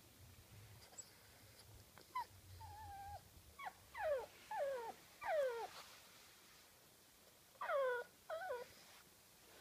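Small dog whining: a run of short high whines that each slide down in pitch, one held a little longer, then after a pause two more.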